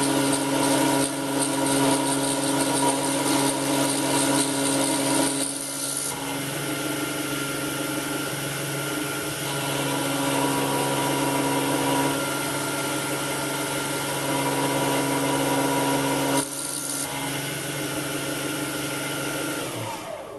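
A 775 DC motor toolpost spindle running steadily while its end mill cuts a slot in a brass workpiece, a steady motor whine with the hiss of the cut. Near the end the motor is switched off and its whine falls away.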